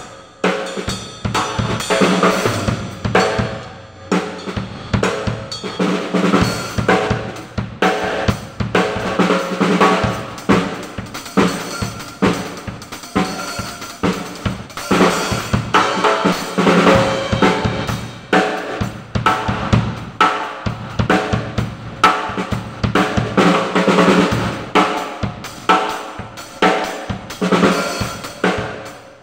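Acoustic drum kit played without a break: snare, bass drum and hi-hat keeping a steady beat, with cymbal crashes.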